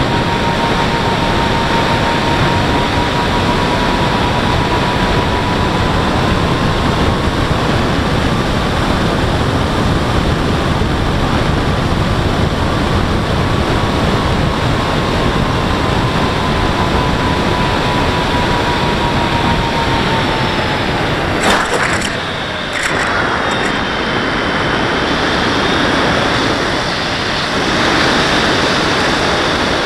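Onboard audio of a radio-controlled model plane in flight: a steady rush of wind and propeller noise with the electric motor's thin whine. The whine slides down in pitch a little past two-thirds of the way through, two sharp clicks follow, and after them a higher whine carries on.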